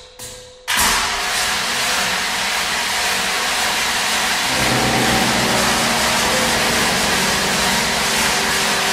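Contemporary chamber music for bassoon, accordion and percussion played with extended techniques: two last fading percussion strikes, then under a second in a sudden loud, steady, dense noise sets in. About halfway through, low held tones join the noise.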